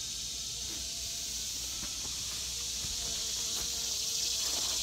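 Steady, high-pitched drone of insects.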